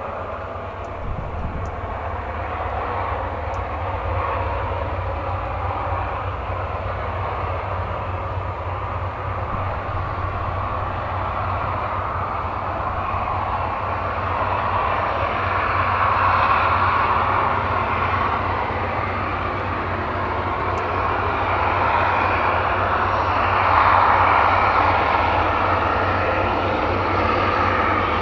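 Class 241 'Ludmilla' diesel locomotive working at full power under a very heavy freight load, its engine running with a steady deep drone and the typical hissing 'Fauchen' of a Ludmilla at its power limit, growing louder as it approaches.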